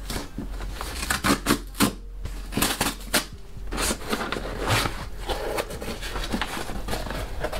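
Cardboard shipping box being opened by hand: irregular crackles, scrapes and rustles as the cardboard flaps are pulled and handled.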